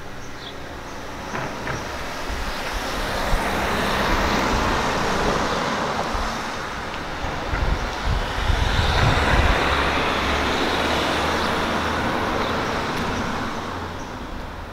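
A motor vehicle running close by: its engine and road noise grow louder over the first few seconds, stay loud through the middle and fade away near the end.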